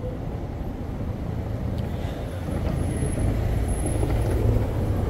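A car driving past on a cobbled street, a low engine and tyre rumble that grows louder from about halfway through and is loudest near the end.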